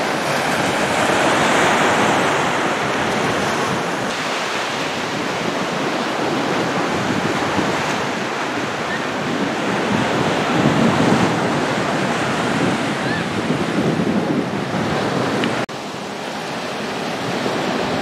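Ocean surf washing onto a beach, mixed with wind: a steady rushing noise that drops suddenly in level near the end.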